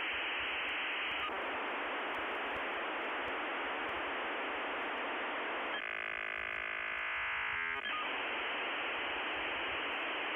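Steady static hiss, thin as if heard over a telephone line, broken about six seconds in by two seconds of layered steady tones before the hiss returns.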